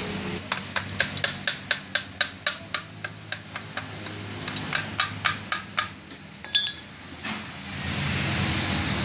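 Hammer tapping rapidly on the aluminium alternator (stator) cover of a Yamaha R15 engine to knock it loose from the crankcase: two runs of sharp metallic taps, about four a second, then a single louder metal clank.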